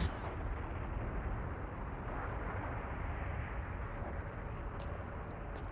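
Cartoon sound effect of a steady low rumble, the ground shaking from a huge crash or quake, with a few faint sharp clicks near the end.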